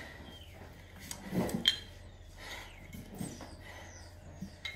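Sneakers landing on the seat of a metal chair during alternating jump step-ups, the chair clinking and rattling three times.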